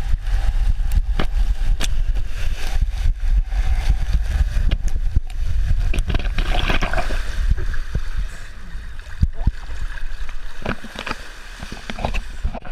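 Water rushing and splashing, with wind buffeting the microphone as a heavy low rumble and many sharp crackles; it eases off somewhat after about eight seconds.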